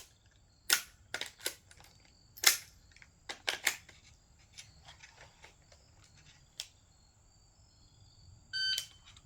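AR-pattern rifle being worked by hand to clear a jam: a series of sharp metallic clacks, the loudest about a second and two and a half seconds in. Near the end, an electronic shot timer gives its short start beep.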